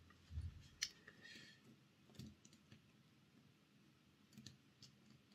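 Faint, scattered small clicks and taps of a small screwdriver and fingers handling an OO gauge model locomotive chassis, over near silence.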